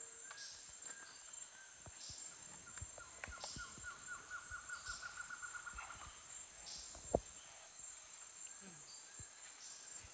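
Tropical forest ambience: a steady high-pitched insect drone, with a bird's rapid trill lasting a couple of seconds near the middle. Scattered faint ticks and one sharp click about seven seconds in.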